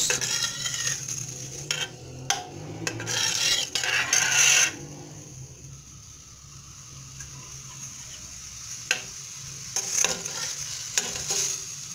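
Diced onions frying in oil in a stainless steel pot, stirred with a metal spoon that scrapes around the pot in strokes for the first five seconds. Then a quieter steady sizzle follows, with a few light spoon knocks near the end. The onions are being sautéed until lightly pink, the first stage of the dish.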